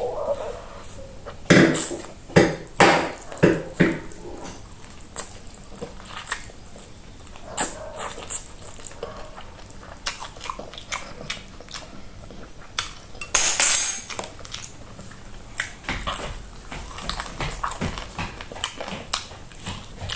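About five short, loud, animal-like calls in quick succession, a second and a half to four seconds in, over small eating and table clicks. A brief loud hissing rustle comes about two-thirds of the way through.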